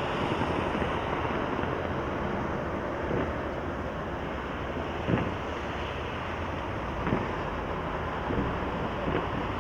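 Aerial fireworks show heard outdoors: a steady rushing hiss, with a few single booms from shells bursting about five, seven and eight and a half seconds in.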